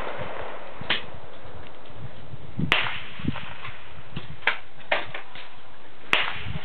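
Shotgun shots at a trap range: several sharp reports with a short echo, the loudest about three seconds in and again near the end, with a few fainter cracks between.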